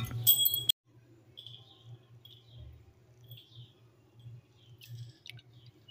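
A metal vessel clinks briefly at the start. Then, very faintly, a low hum under scattered soft chirp-like sounds.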